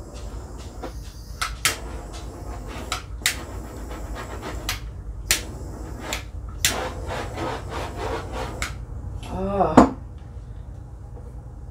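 Sharp clicks and knocks from tools being handled and set down on a work table, over a steady low hum. A short pitched sound that bends up and down comes just before the end.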